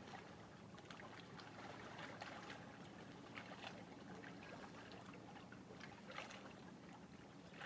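Faint lapping of small lake waves: a scatter of soft, irregular little splashes and drips at the water's edge, over a low steady hum.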